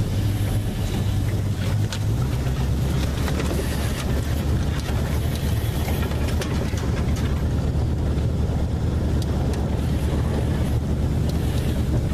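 Swamp buggy engine running steadily as the buggy drives through brush, a continuous low drone whose pitch drops about two seconds in. Scattered clicks and rattles come over the top of it.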